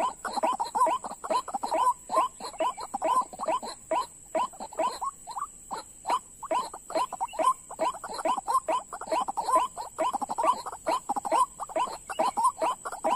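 White-breasted waterhens calling: a continuous, rapid series of short croaking notes, about four a second, with no break.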